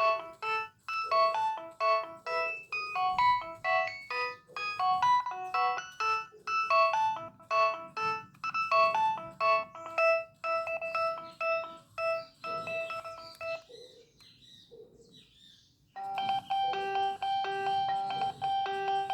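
Nokia 6560 mobile phone playing electronic ringtone melodies of quick short notes. About three-quarters of the way through, one tune ends, and after a brief pause a different ringtone begins with a held high note over a repeating lower one.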